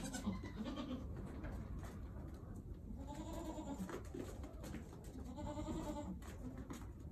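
Goat bleating several times, drawn-out calls each about a second long and a couple of seconds apart.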